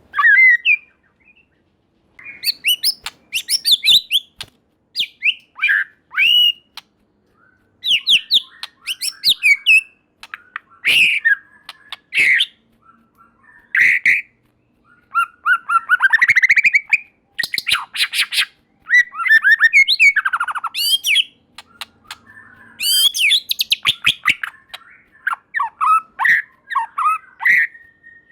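White-rumped shama (murai batu) singing in bursts of varied whistled phrases mixed with fast chattering rattles, with short pauses between phrases.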